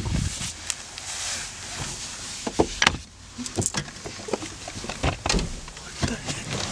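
Scuffling and rustling with irregular knocks and bumps as people shift about in a car's back seat, the sharpest knock a little under three seconds in.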